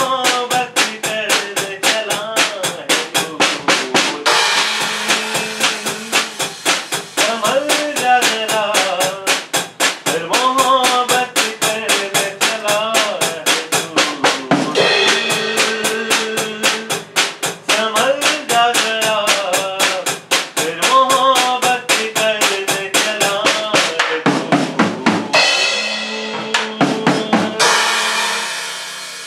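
Drum kit played with a fast, steady beat of snare and bass drum over an instrumental melody. Near the end the beat breaks into long cymbal washes and the music fades out.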